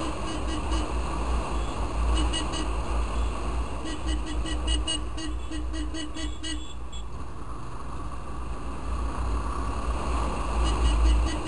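Yamaha Fazer 250 motorcycle riding through slow traffic. A heavy, steady rumble of wind and engine sits on the microphone. Faint rapid high clicks or beeps come and go in the middle.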